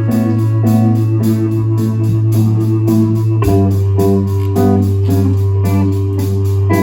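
Live band playing an instrumental passage: guitar chords repeating about three times a second over held bass notes, with an organ-like keyboard; the bass note shifts about halfway through.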